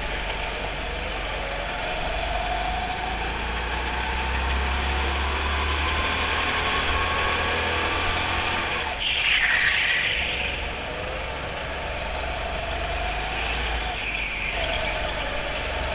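Go-kart engines running on an indoor track, the pitch rising and falling as the kart speeds up and slows through the corners. A short hissing burst about nine seconds in is the loudest moment.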